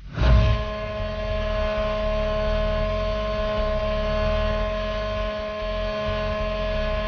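Honda Formula 1 V6 racing engine cutting in loudly, then running steadily at a constant speed with an even, unchanging pitch.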